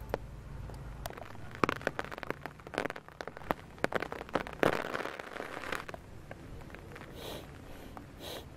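Rain dripping onto leaves and branches: irregular sharp ticks and patters, thickest between about one and six seconds in, with two short rustles near the end.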